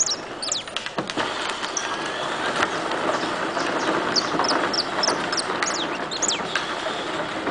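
Small birds chirping: quick, high, short notes, many dropping in pitch, scattered through, over a steady rumbling background noise.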